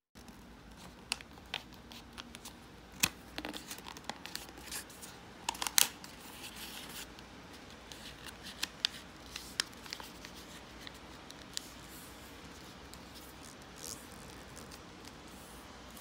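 A sheet of origami paper being folded and creased by hand on a table: crisp crackles and snaps of the paper, busiest in the first several seconds, then fewer and fainter as the fold is pressed flat.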